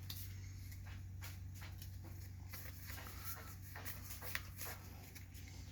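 Faint, irregular clicks and rustles of trading cards and foil packaging being handled, over a steady low electrical hum.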